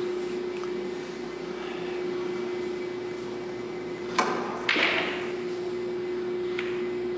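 Pool shot: a sharp click of the cue tip striking the cue ball about four seconds in, then half a second later a louder clack and rattle of balls colliding, with a light click of a ball near the end. A steady low hum sits under it all.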